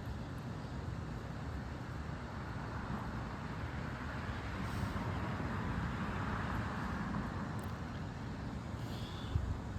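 A car passing on the street over a steady outdoor background of traffic noise, its tyre noise swelling and fading in the middle; a short low thump near the end.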